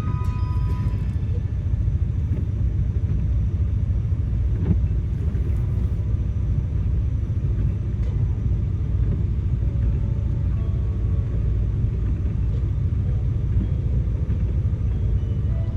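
Car driving, a steady low rumble of road and engine noise heard from inside the cabin.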